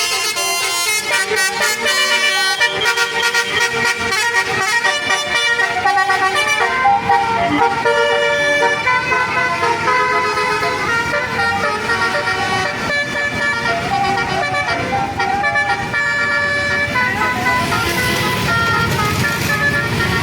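Bus 'telolet basuri' multi-trumpet air horn playing a melody, several notes sounding together and changing pitch a few times a second. A rush of engine and road noise swells near the end as the bus passes.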